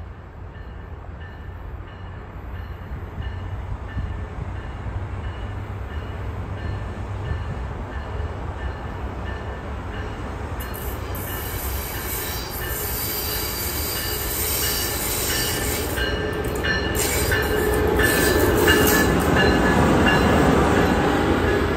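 Amtrak Acela Express electric trainset approaching and passing, its wheel-and-rail rumble building steadily and loudest near the end, with added high hiss from about halfway. A grade-crossing bell dings steadily about twice a second behind it.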